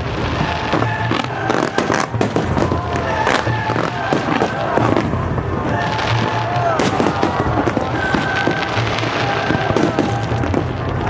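Aerial fireworks bursting and crackling in rapid, overlapping cracks, over music playing in the background.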